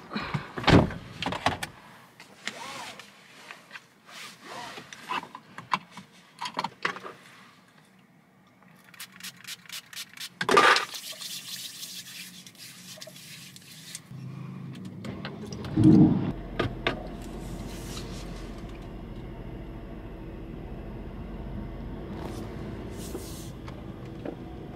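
Scattered clicks and knocks of handling, then a loud thump about sixteen seconds in, after which a car runs steadily with a low, even hum.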